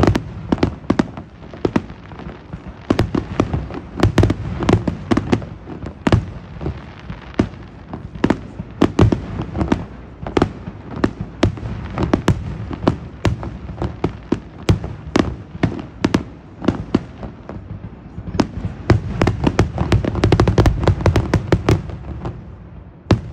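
Fireworks going off: a rapid series of bangs and crackling from aerial shells and rising comets, several a second, growing denser and louder near the end.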